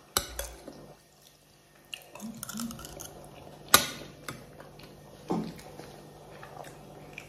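Fork or spoon clicking and scraping against an aluminium foil takeaway tray during a meal, a few separate clicks with the sharpest about four seconds in.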